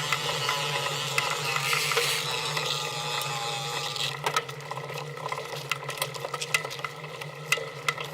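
A machine running with a steady low hum and frequent irregular clicks and ticks. A hissing rush over it fades out about four seconds in.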